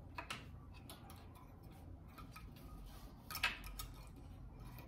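A few faint ticks of a reed hook and yarn against the metal wires of a loom's reed during sleying, the clearest about three and a half seconds in.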